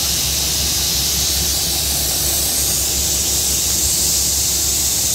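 Steady, even hiss of air venting from the standing passenger train, over a low steady hum.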